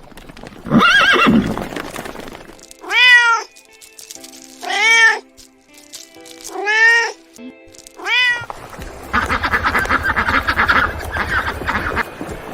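Domestic cat meowing four times, each meow a short call that rises and falls in pitch, over faint background music. Near the end comes a rapid, buzzing rattle.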